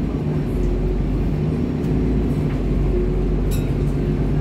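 ADL Enviro 400 double-decker bus's engine and drivetrain running steadily while under way, a low drone heard from inside the upper deck. A single sharp click about three and a half seconds in.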